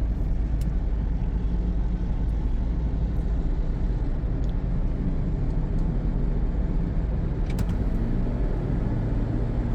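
Toyota Prius being driven on a road test: a steady low rumble of road and running noise, with a few light clicks.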